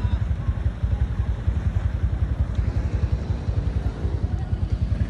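A vehicle engine running steadily, a loud, fast low throb.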